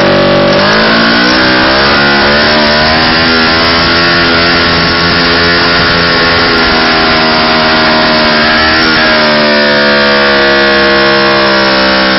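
Motorcycle burnout: the engine is held at high revs while the rear tyre spins on the ground. The revs dip and climb back about half a second in, then ease down a little near the end.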